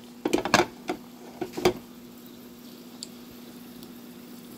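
Kitchen cooking sounds: a few sharp clicks and knocks in the first two seconds, then a steady faint hiss over a constant low hum, from a pan of broth boiling beside an electric griddle.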